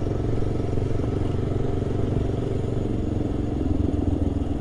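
Honda NX400 Falcon's single-cylinder engine running steadily as the motorcycle cruises along a street, with a constant rush of wind and road noise.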